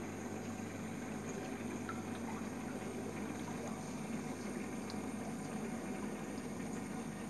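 Sobo WP-3990 aquarium powerhead running, its outflow churning the water and drawing air into a steady stream of bubbling, over a low constant hum.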